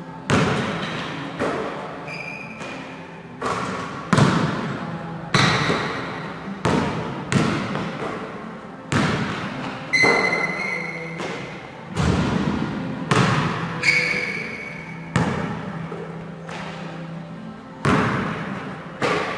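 Basketball bouncing and thudding on a gym floor at irregular intervals of about one a second, each impact echoing in the large hall. A few of the hits carry a brief metallic ring, the ball striking the rim.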